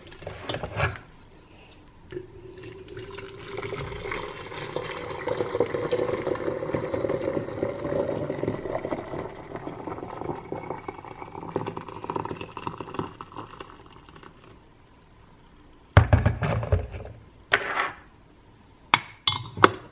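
Glass electric kettle heating water: a bubbling hiss and rumble that builds from about two seconds in and fades away again after about fourteen seconds. A few sharp knocks and clicks follow near the end.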